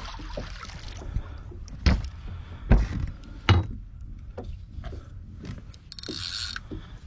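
Knocks and bumps on a boat's hull while a just-landed fish is handled, three sharp ones over a second and a half, with a short hiss near the end.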